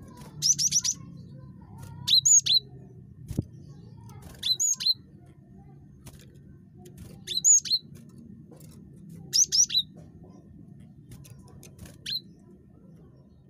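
Cinereous tit (gelatik batu) calling repeatedly: six short bursts of two or three sharp, high whistled notes, one every two to three seconds, over a faint low steady hum.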